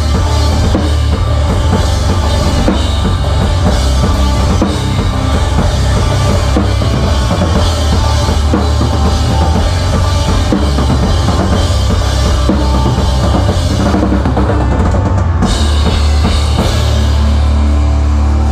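A rock drum kit played hard, close up: bass drum, snare and Zildjian cymbals crashing over the full band's guitars and bass. Near the end the drumming drops out and a held chord rings on.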